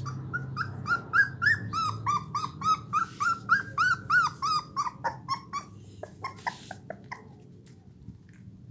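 Young blue pit bull puppy whining: a run of short, high, arching cries, about three a second, that grow shorter and fainter over the last few seconds.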